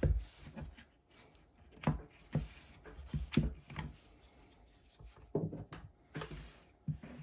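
Plastic clamshell housing of a Makita DTD153 cordless impact driver being pried apart and handled: irregular clicks, knocks and rubbing of plastic parts.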